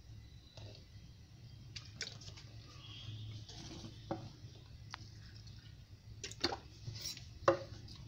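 Water poured onto flattened rice (poha) in a steel bowl, then a steel spoon stirring the wet rice to rinse it, with small clicks and a few sharp clinks of the spoon against the bowl, the loudest near the end.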